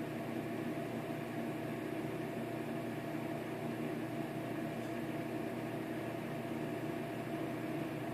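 Steady whirring hum with hiss from a Technics SL-J33 linear-tracking turntable spinning a record; no music is heard.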